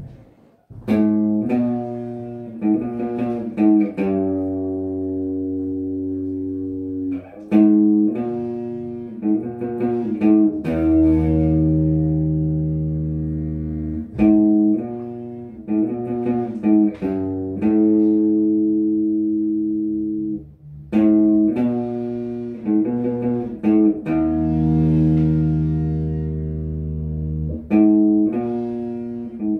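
Electric guitar strumming chords that are left to ring, a short chord progression repeating about every seven seconds.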